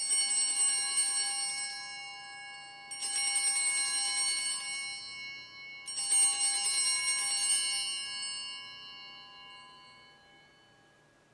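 Altar bells rung three times, about three seconds apart, marking the elevation of the chalice after the consecration. Each ring is a quick jangle of bright tones that rings on and slowly fades.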